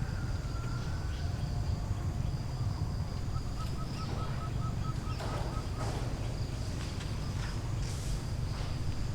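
Outdoor ambience: a steady low rumble with a thin, high, steady insect drone over it. An animal call, a quick even run of about nine short notes, comes a few seconds in.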